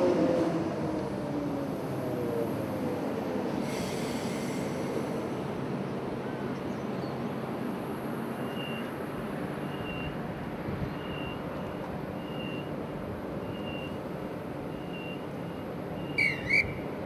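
Queensland Rail EMU electric train braking to a stop, its motor whine falling in pitch over the first few seconds, with a short hiss of air about four seconds in. While it stands, a high beep repeats about once every second and a bit. Two loud, short downward chirps sound near the end.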